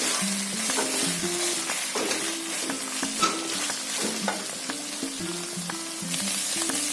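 Vegetables and chicken sizzling as they are stir-fried in a non-stick wok, with short clicks of stirring against the pan.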